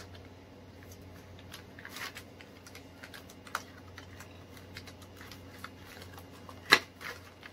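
Clear plastic doll packaging rustling and crinkling as small hands work it open, with scattered light clicks and one sharper crackle near the end.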